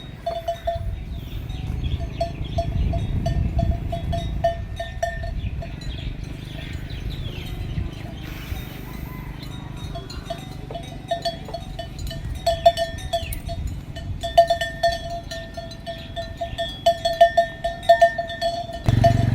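Cattle bells clanking irregularly as the cattle move about, the strokes coming in loose clusters and thickest in the second half, over a steady low rumble.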